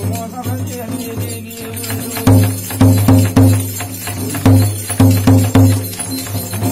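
Jhakri shaman's ritual music: a steady low drone with rattling and jingling, then from about two seconds in a run of loud, irregular drum strikes.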